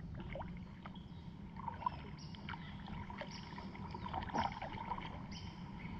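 A kayak being paddled along a calm river: low water and hull noise with a few soft paddle splashes, and short high chirps repeating about once a second from about two seconds in.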